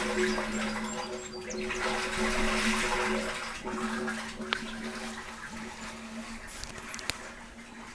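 Sewage rushing and gurgling in a sewer manhole that is backed up almost to overflowing. The rush is loudest for the first few seconds, then dies down.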